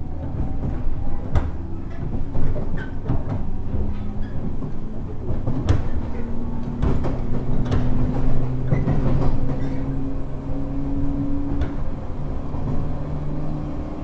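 JR 103 series electric train running, heard inside motor car MoHa 103-406 from above a motor bogie. The DC traction motor and gear hum rises slowly in pitch as the train gathers speed, with the wheels clicking irregularly over rail joints.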